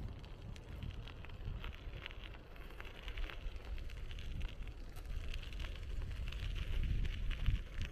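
Riding a bicycle: wind buffeting the microphone as a low rumble, with road and tyre noise and scattered small clicks and rattles.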